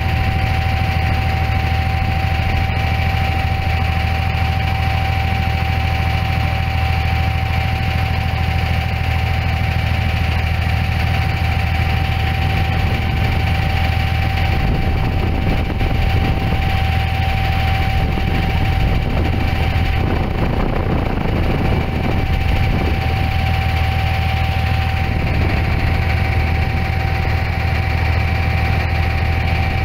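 Boat engine running steadily, heard from on board: a low drone with a constant thin whine above it.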